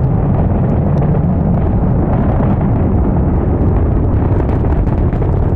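Exhaust noise of a Falcon 9's nine Merlin first-stage engines heard from the ground as the rocket climbs: a loud, steady, deep rumble, with faint crackles coming in during the second half.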